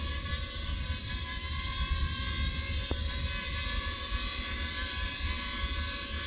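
Small quadcopter's electric motors and propellers whining in several steady high tones as it descends under automatic return-to-launch control, with a low rumble of wind on the microphone.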